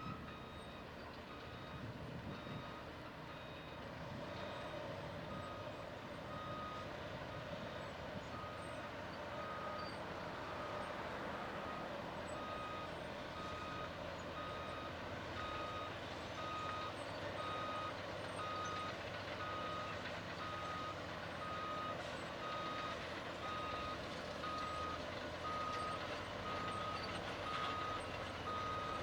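Backup alarm of a Caterpillar D8T bulldozer beeping steadily about once a second while the dozer reverses, over the rumble of its diesel engine, which grows a little louder a few seconds in.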